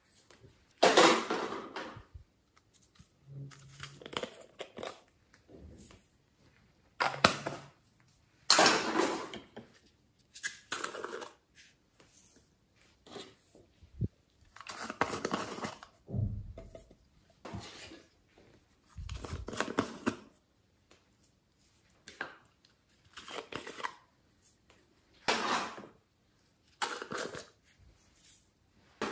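Small plastic slime containers being handled, opened and their contents tipped into a glass dish of slime: a series of short handling noises, each about a second long, separated by quiet gaps.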